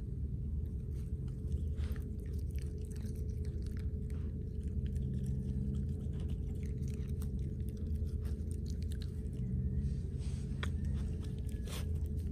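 Miniature pinscher chewing and licking grass close to the microphone: irregular small crunches and clicks over a steady low rumble.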